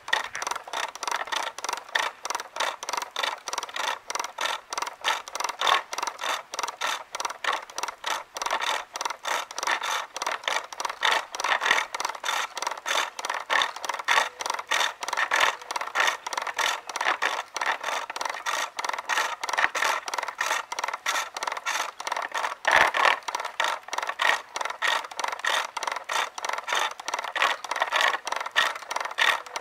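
A big roughing gouge cutting a maple blank spinning on a pole lathe, throwing chips in a fast, even rhythm of scraping cuts, about three a second. The rhythm follows the treadle, since the work cuts only on the downstroke.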